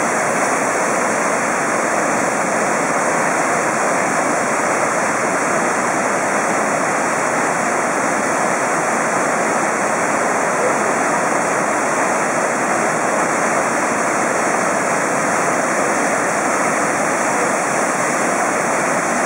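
Waterfall and rapids cascading over rock: a loud, steady rush of water that does not change.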